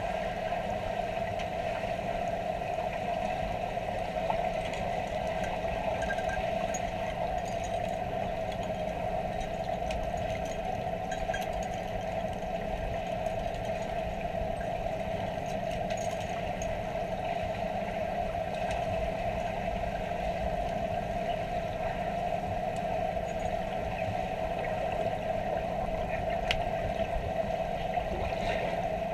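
Steady machine hum heard underwater in a swimming pool, unchanging throughout, with a few faint clicks.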